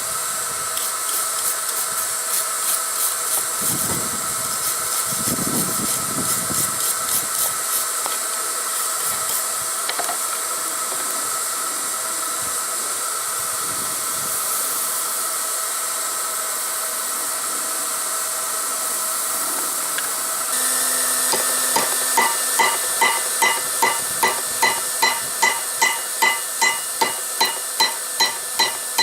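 Steady hiss of the forge's air blast, with faint fast ticking in the first few seconds. About twenty seconds in, a hammer starts striking hot steel on an anvil at about two ringing blows a second: hammering the borax-fluxed, folded file steel to set a forge weld.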